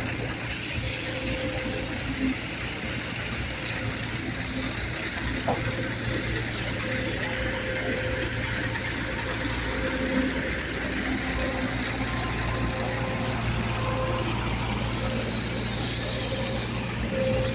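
Engines running steadily: a low, even hum with a faint higher tone coming and going, over a haze of mechanical noise.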